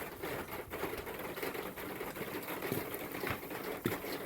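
Water dripping off a dormer and landing on the cover of the lower gutter: a rapid, irregular patter of taps. This is the obnoxious noise that new gutters and covers were fitted to fix.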